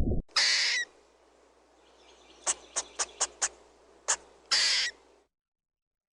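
Animal calls: a long high call, then about six short sharp calls, then another long high call.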